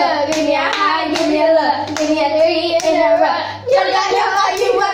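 A hand-clapping game: girls singing a sing-song clapping rhyme while their palms slap against each other's hands.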